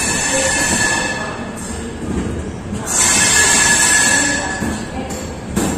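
Passenger train pulling slowly out of a station, heard from an open coach doorway: wheels running on the rails with a steady high-pitched squeal, growing louder about three seconds in.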